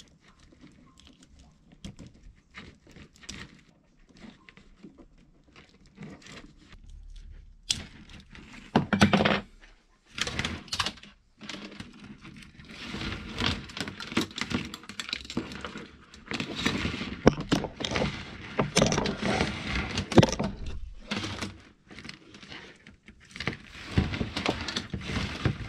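Hands handling a tangle of loose electrical wire and a small plastic connector. Faint clicks and ticks at first, then from about eight seconds in a busy rustling and clattering as lengths of wire are pulled and dragged across the bench.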